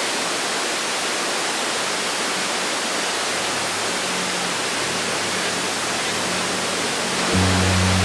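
Steady, even rushing noise, like falling water, that starts abruptly. About seven seconds in, low sustained musical tones come in beneath it.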